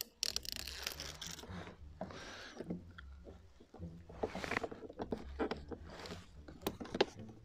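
Hands working a self-adhesive LED strip onto the inner edge of a car door: rustling and scratchy peeling noises from the strip and its backing liner, in several short patches, with a few light clicks near the end.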